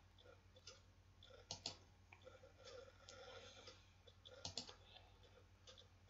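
Faint computer mouse clicks over near silence: two pairs of quick clicks about three seconds apart.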